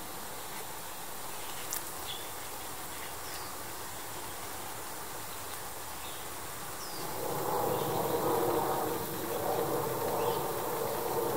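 Outdoor ambience with a steady hiss and a few faint, short, high chirps of a small songbird. About seven seconds in, a louder low droning hum swells up and continues.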